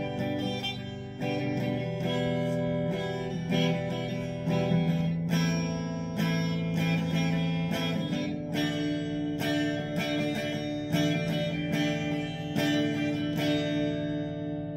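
Gibson Les Paul electric guitar played through a Vox combo amp over a Monster Rock instrument cable: chords strummed and notes picked about once a second, each left ringing, the playing easing off near the end. It is a tone test of the cable, which the player finds brings out more mids and treble and a stronger, louder signal than his old cable.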